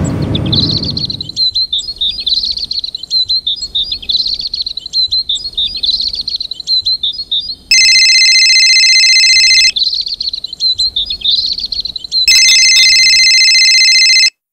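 Birds chirping steadily, over which a mobile phone ringtone rings twice, each ring a loud, steady electronic tone lasting about two seconds, the first about eight seconds in and the second near the end.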